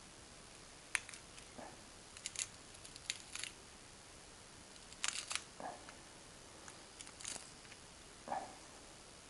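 Irregular handling noise: a dozen or so sharp clicks and taps, in clusters about 1, 2–3.5, 5–5.5 and 7–7.5 seconds in, with three short, duller rustling scrapes among them.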